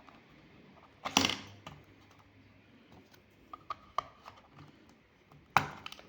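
Clicks and knocks of small plastic and metal parts being handled while a security camera is taken apart, with a loud knock about a second in, another near the end, and lighter clicks in between.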